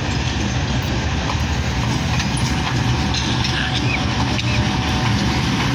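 Pakistan Railways diesel-electric locomotive no. 4566 running in slowly with a passenger train. Its diesel engine drones steadily at close range as it passes.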